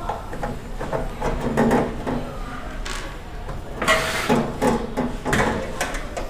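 Clicks, knocks and a short scrape from tools and hands working on a microwave's metal casing while it is being taken apart, with the loudest scrape about four seconds in.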